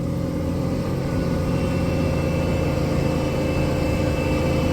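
Tractor engine running steadily under load while pulling a loaded grain trailer, with a faint high whine joining about a second and a half in.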